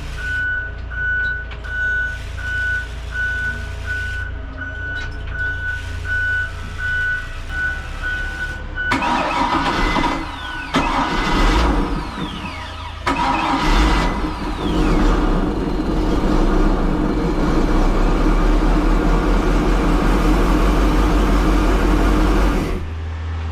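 A boat's key-on warning buzzer beeps rapidly and steadily. About nine seconds in, the Volvo Penta 5.7 GSi V8 cranks in a few short tries, catches and runs steadily, cutting off just before the end. It now runs on fuel from the other tank's line, which points to the fuel module on the original side.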